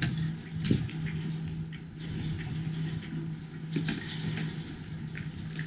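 A steady low hum and hiss, with a few soft knocks of footsteps on a sailboat deck.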